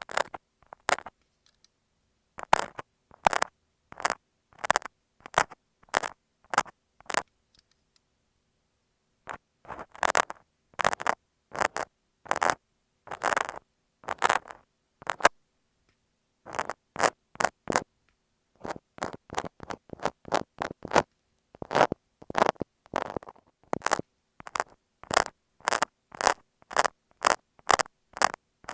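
Utility knife (box cutter) blade drawn over masking tape on an earphone microphone: short scratchy strokes in quick succession, with a pause of about two seconds near a third of the way through.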